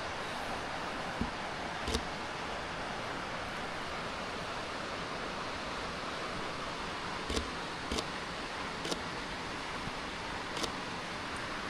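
Steady rushing roar of a waterfall, an even noise with no pitch. A handful of short sharp clicks cut through it, two close together a little past the middle.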